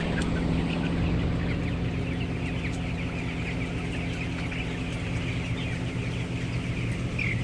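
A large flock of half-grown broiler chickens cheeping and chirping, many short calls overlapping, over the steady hum of the chicken house's ventilation fans.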